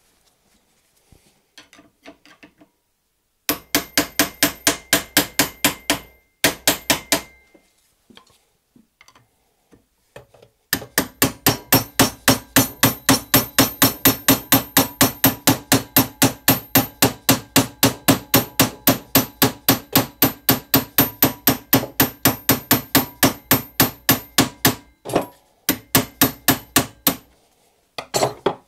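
Cordless impact driver hammering on the cover screws of a hydraulic gear pump to work them loose, in rapid even knocks about four or five a second. It comes in several runs, the longest lasting about fourteen seconds.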